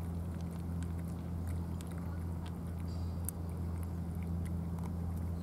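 Several cats chewing wet food, a scatter of small irregular wet clicks, over a steady low hum.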